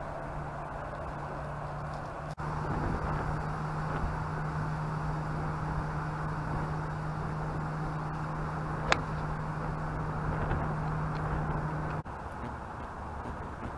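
Steady wind noise on a small camera's microphone with a constant low hum, and a single sharp click about nine seconds in.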